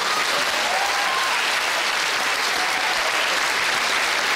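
Large theatre audience applauding steadily, with laughter mixed in.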